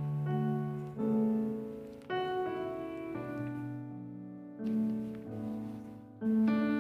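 Solo piano playing slow, soft chords, each struck and left to ring and fade before the next.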